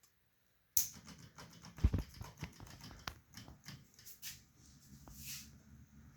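A switch clicks on about a second in, and a small 12-volt mini ceiling fan's motor starts on 9.5 volts. It gives a faint low hum with irregular clicks and ticks as it hiccups, which the owner puts down to the fan possibly not getting its correct voltage.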